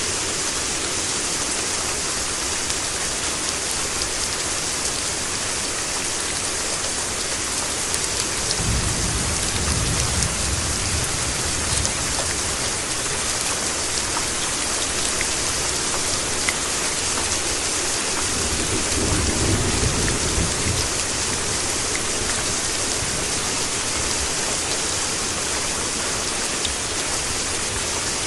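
Steady, dense rainfall hissing and pattering on surfaces, with a deeper low rumble swelling twice, about nine and nineteen seconds in.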